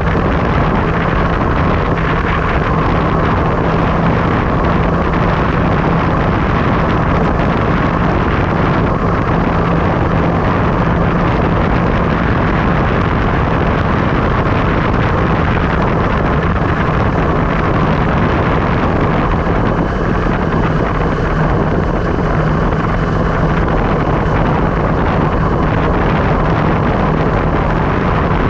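Wind rushing over an action camera's microphone during a steady downhill ride, with a constant low hum underneath.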